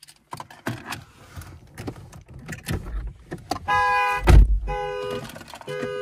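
2023 Chevrolet Malibu LT's horn blaring in three short honks about a second apart as the car alarm goes off, heard from inside the cabin. Before the honks come scattered clicks and knocks, and a loud thump falls just after the first honk.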